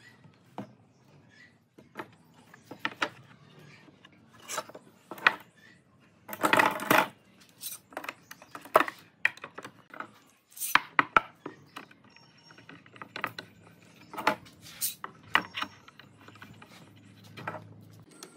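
Steel bar clamps clinking and clicking as they are set and tightened, with pine boards knocking on the workbench, in irregular sharp knocks and a couple of brief denser clatters.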